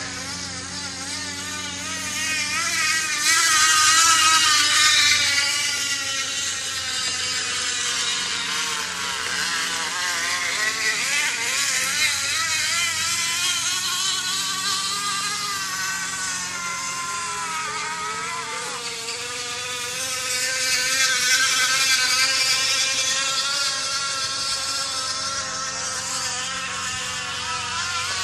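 A plastic water bottle flicked by a bicycle's spokes, making a buzzing, motorbike-like engine sound. Its pitch rises and falls with the bike's speed, and it grows loud as the bike passes close, about 4 seconds in and again about 21 seconds in.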